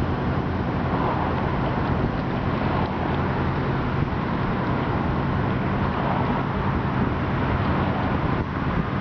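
Steady low motor drone that holds an even pitch, with wind noise on the microphone over it.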